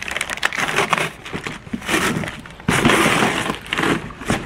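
Cardboard box packaging being handled: flaps and inserts knocking, scraping and rustling, with a louder stretch of scraping rustle a little before the end.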